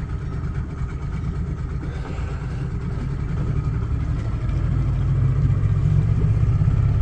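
Yamaha F30 three-cylinder four-stroke outboard motor running just after a cold start: a steady low engine note that grows louder about two-thirds of the way through.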